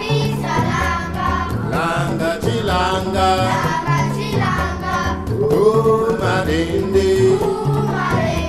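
A group of children singing an African song together in chorus, over a regular low beat that repeats throughout.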